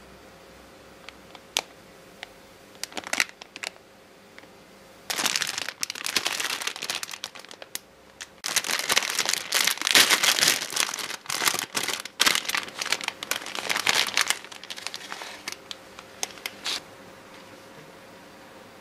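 Clear plastic bread wrapper crinkling as it is pulled open by hand and the melon bread is taken out. A few scattered crackles come first, then two long stretches of dense crinkling, which thin out and stop about two seconds before the end.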